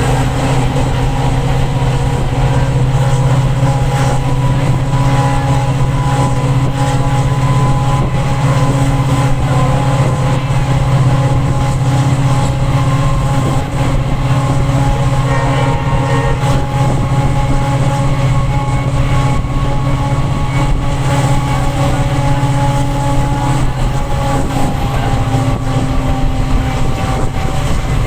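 EMD two-stroke diesel locomotive engine running under power with the train at speed: a loud, steady low hum with a few faint steady higher tones above it.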